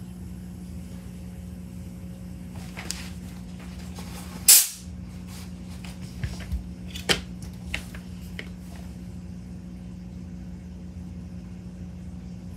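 A short, sharp hiss of high-pressure air from a PCP airgun's fill setup about four and a half seconds in, then a few light clicks and knocks of metal fittings being handled, over a steady low hum.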